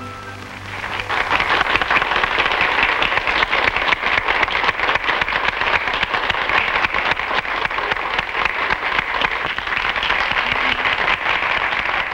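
Audience applauding steadily, the clapping swelling in about a second in as the last note of the song dies away.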